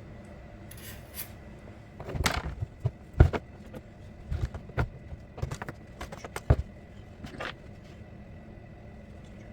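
A string of irregular knocks, clicks and clatters, the loudest about three seconds in, over a quiet steady background.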